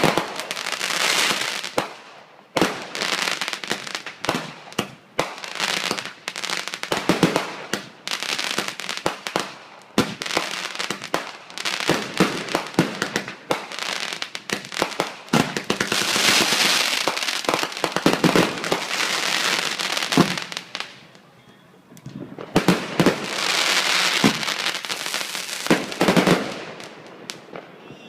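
Fireworks finale: a rapid barrage of aerial shell bursts with crackling, coming in dense waves, with short lulls about two seconds in and again around twenty-one seconds in.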